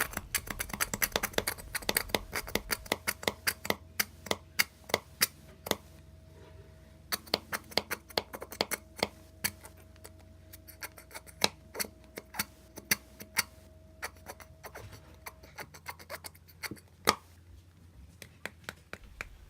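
A plastic squeeze bottle of liquid soap being squeezed and handled to force the thick soap out, making a run of irregular sharp clicks and crackles.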